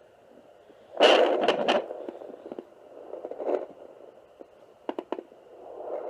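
Handheld fetal Doppler's speaker crackling and scraping as its gel-covered probe is pressed onto and moved over the lower belly: a loud burst of crackle about a second in, then softer scrapes and a few sharp clicks over a faint steady hiss.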